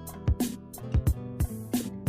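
Background music with a steady drum beat and sustained guitar and keyboard tones.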